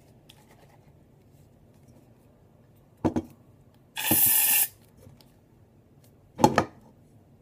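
Aerosol can of shaving cream spraying out in one short hiss of under a second, with a knock from handling before and after it.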